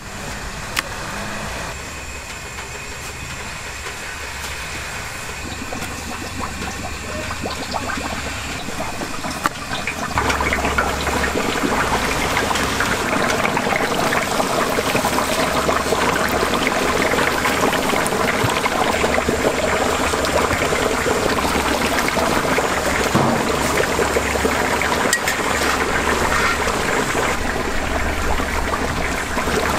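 Whole battered chickens lowered into hot oil in a cast-iron cauldron (gamasot), the oil bubbling and sizzling. It is quieter at first, and the sizzling becomes much louder and denser about ten seconds in as the chickens go into the oil.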